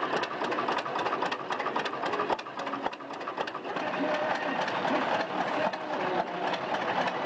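Steady mechanical clatter of old engines running, a busy rhythmic ticking, with people talking underneath.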